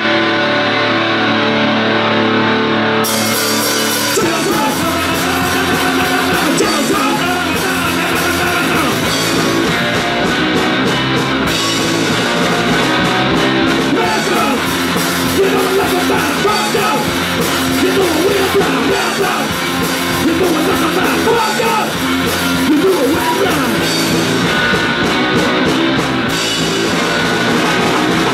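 A live rock band playing a song: electric guitar, electric bass and drum kit, with sung vocals. It opens with sustained chords, and the full band with bass and drums comes in about four seconds in.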